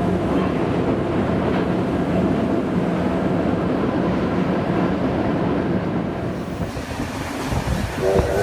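A train rolling across a steel truss railway bridge, a steady rumble of wheels and cars. Near the end the rumble gives way and steam locomotive 3642's whistle starts to sound.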